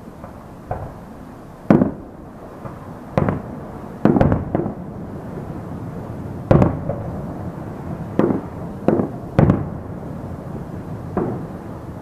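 Distant aerial fireworks shells bursting: about ten sharp booms at irregular intervals, some in quick succession around the middle, each with a short rumbling tail.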